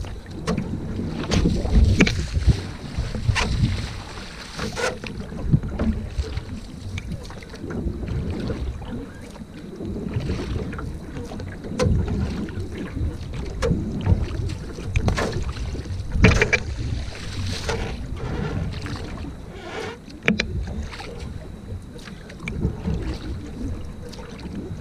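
Single-blade paddle strokes in a narrow racing canoe: repeated splashes and swishes as the blade catches and pulls through the water, over a low rumble of wind on the microphone.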